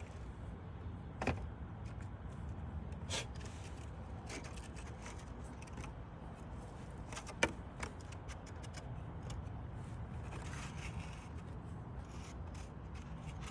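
Wooden roof shakes being handled and fitted into a roof course: a few sharp clicks and knocks, the loudest about halfway through, with light scraping near the end over a steady low rumble.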